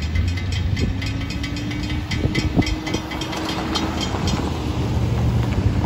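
Railroad crossing bell ringing in rapid, regular strikes as the gates go up behind the departing train, stopping about four seconds in. Under it runs a low rumble of road traffic.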